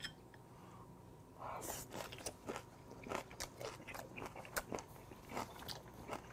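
A man chewing a mouthful of raw goby with young-radish kimchi, close to a clip-on microphone: crunchy, wet chewing with many irregular little crunches, starting about a second and a half in after a faint click at the very start.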